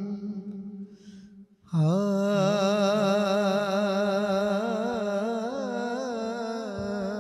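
A man sings an Urdu manqabat (devotional song) into a microphone. A long held note fades out about a second and a half in. After a brief pause he starts a new line with ornamented, wavering melisma over a steady low drone.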